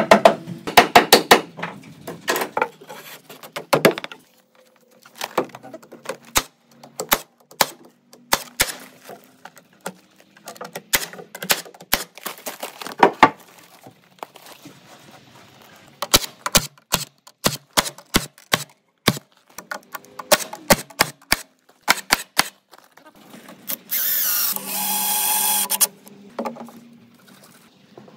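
Pneumatic framing nailer firing nails into wooden joists: sharp shots in quick runs with short pauses between. A machine runs steadily for about two seconds near the end.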